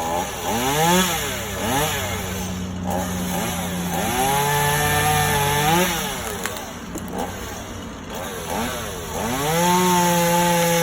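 Chainsaw engine revving: a few quick blips of the throttle, then held at high revs for about two seconds in the middle, dropping back to lower revs, and rising again to high revs near the end.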